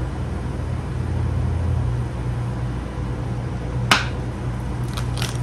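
A steady low rumble, with one sharp snap-like click about four seconds in and a few lighter clicks near the end.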